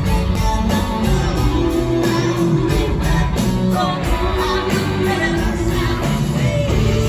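Live pop-rock band playing through a concert PA system, heard from the audience: electric guitars, keyboards and a steady drum beat under a woman's lead vocal.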